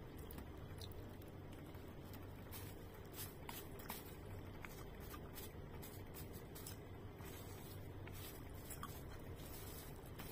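Close-up eating sounds: chewing a mouthful of food, with small scattered clicks of a plastic spoon against a plate, over a steady low hum.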